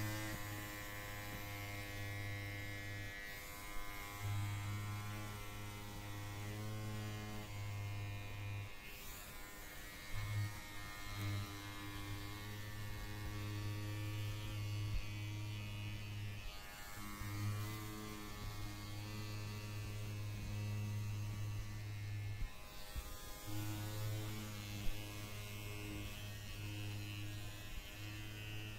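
Electric hair clippers running with a steady buzzing hum that drops out briefly every four to six seconds.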